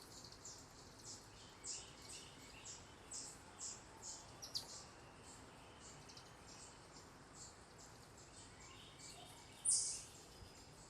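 Small songbirds chirping: short, high chirps repeated two or three times a second, with one louder chirp a little before the end, over faint outdoor background hiss.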